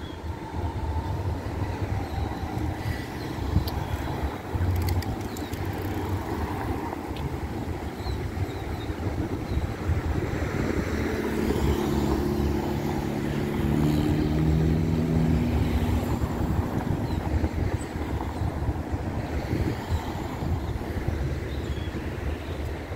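Street traffic with a steady low rumble. A passing vehicle's engine hum stands out from about ten seconds in and fades by about sixteen.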